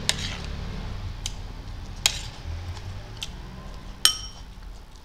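Metal spoon clinking against a plate and glass bowls in a few sharp clicks about a second apart; the clink about four seconds in, spoon against a glass bowl, rings briefly.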